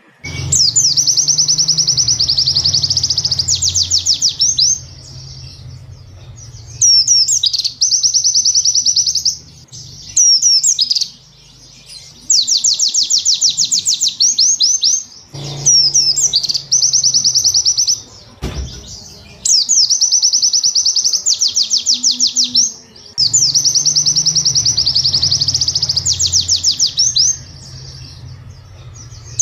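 White-eye (pleci) song: bouts of fast, high chattering notes and trills a few seconds long, with short gaps between them, built from the rapid repeated 'cap-cap-cap' and 'wit-wit-wit' phrases used as mastering song.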